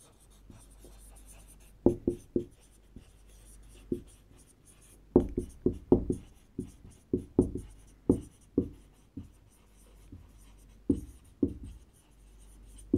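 Marker pen writing on a whiteboard: irregular short strokes and taps, busiest about five to nine seconds in.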